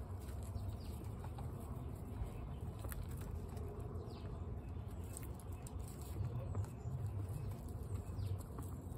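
Guinea pigs crunching and chewing dry pellets from metal bowls: a steady stream of small, crisp crunches and clicks over a low rumble.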